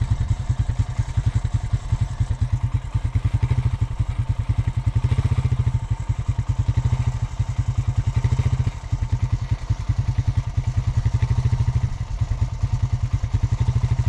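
A vehicle's engine running with a steady low pulsing beat, easing off briefly about nine seconds in and again about twelve seconds in.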